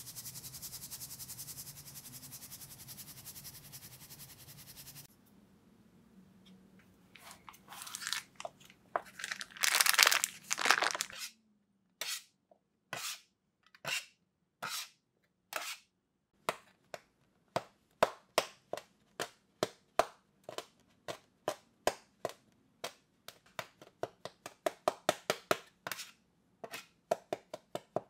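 Food-preparation sounds on the worktop: a steady rustling noise for about five seconds, a louder irregular scraping stretch, then a run of short, sharp cutting strokes, about one a second at first and quickening to two or three a second near the end.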